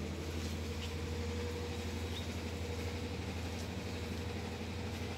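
A steady low hum with a faint steady higher tone over it, and a couple of faint short chirps about one and two seconds in.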